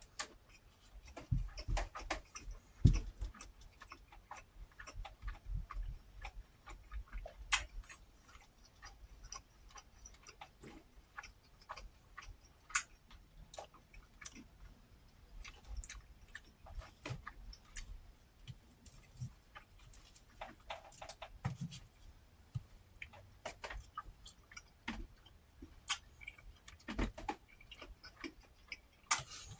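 A person chewing fried fish, with many irregular clicks and a few low thumps in the first few seconds.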